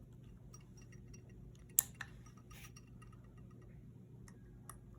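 Sig P220 SAO pistol's action being worked while its trigger pull is measured: one sharp metallic click about two seconds in, with a smaller click right after and faint ticks and handling noise around them.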